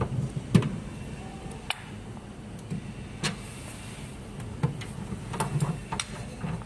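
Irregular light clicks and knocks of screws being fitted and driven into the plastic housing of a tennis ball machine, with a low steady rumble underneath.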